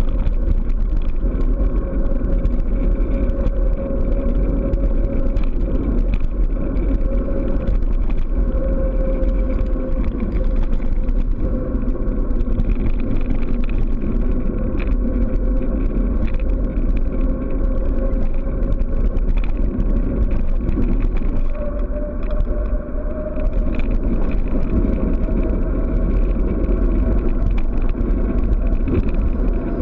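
Wind and road noise on a handlebar-mounted camera during a fast bicycle descent: a loud, steady rush with a constant whine that rises slightly in pitch over the last several seconds.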